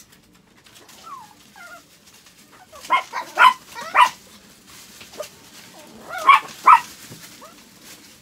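Chihuahua barking: a couple of faint whines, then a quick run of four sharp barks about three seconds in and two more just past six seconds.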